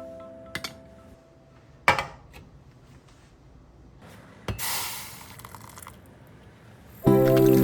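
Kitchen cookware handling: a sharp knock of something set down on a hard surface about two seconds in, then a thump followed by a brief hiss about a second long. Background music starts again near the end.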